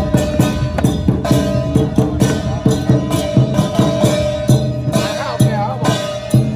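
Traditional lion dance music: drums and cymbals striking a quick, steady beat, with a long held melodic tone over them that wavers into gliding turns near the end.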